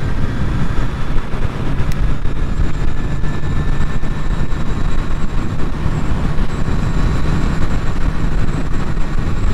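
Motorcycle cruising at highway speed, heard from the rider's camera: a steady engine drone under heavy wind rush on the microphone.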